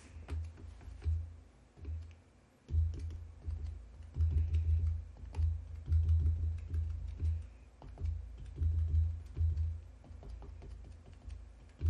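Finger sponge dabbed repeatedly onto an ink pad and onto a clear-block rubber stamp, making irregular soft taps and low thuds through the table.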